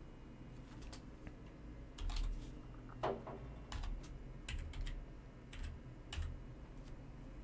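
Computer keyboard typing: a short run of irregularly spaced keystrokes as a word is typed out.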